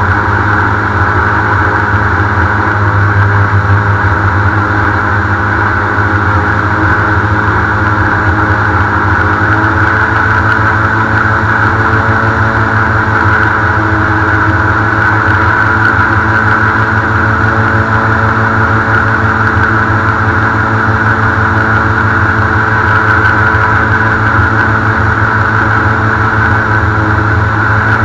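Airboat's engine and air propeller running steadily at cruising speed while the boat skims across shallow water, loud and unchanging in pitch.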